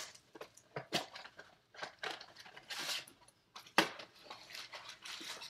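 Trading-card box and packs being handled and opened: a few sharp taps and clicks, the loudest a little before four seconds in, with short rustles of cardboard and wrapper.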